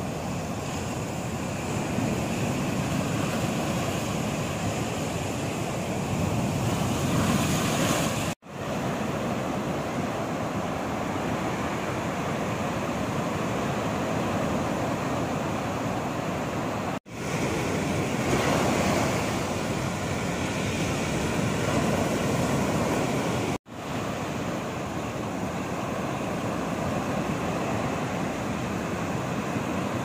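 Rough sea in a strong wind: heavy surf breaking and washing over the beach and rocks in a continuous roar, swelling louder with a couple of bigger breakers. The sound drops out for an instant three times.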